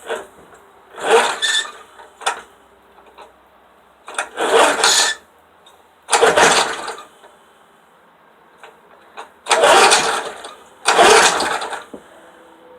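Walk-behind lawnmower engine being pull-started on its recoil cord, about five pulls a couple of seconds apart. Each pull brings a short burst of cranking that dies away, and the engine does not catch on a cold start.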